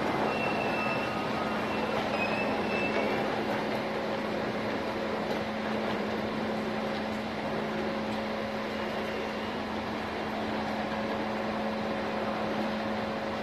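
A diesel railcar pulls into a station platform alongside standing passenger coaches. There is a steady train rumble with a constant low hum and a higher hum, and a faint high squeal in the first few seconds.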